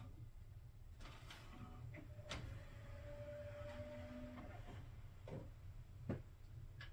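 Sony DVP-NC85H five-disc changer's motorised disc tray closing: a click, then a steady motor whine for about two seconds as the tray draws in, followed by clicks from the mechanism and a louder knock near the end.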